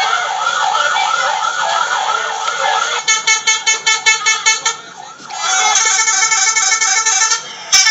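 Bus 'telolet' musical air horns playing: a repeating warbling pattern of about three glides a second, then a rapid stutter of short blasts about three seconds in, then a long steady multi-note chord. A sharp click comes just before the end.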